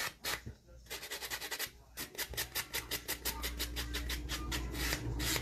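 A hand nail file rasping across a fingernail in quick back-and-forth strokes. The strokes are sparse at first, then run at about eight a second from about two seconds in.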